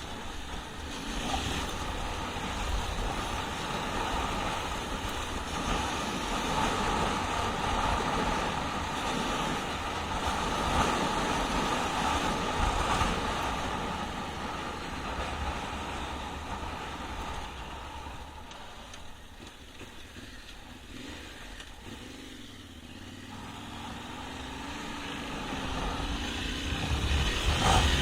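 Yamaha Ténéré 700's parallel-twin engine running under a rider on dirt. It eases off and goes quieter about two-thirds of the way through, then its note rises as it accelerates near the end.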